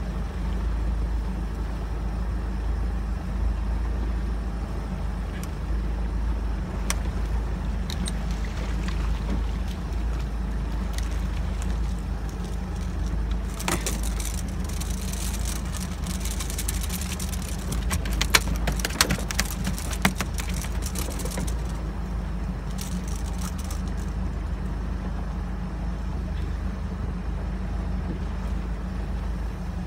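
Boat engine running steadily at slow trolling speed, a constant low drone. About halfway through, several seconds of hissing and sharp clicks come over it as a fish is reeled in and brought aboard.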